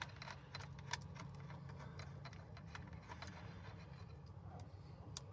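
Faint, irregular light metallic clicks of the steering wheel nut being threaded onto the steering shaft by hand.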